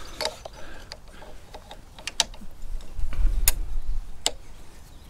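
Irregular metallic clicks and knocks of bicycle parts and a spanner being handled while an e-bike is assembled, with a low rumble about three seconds in.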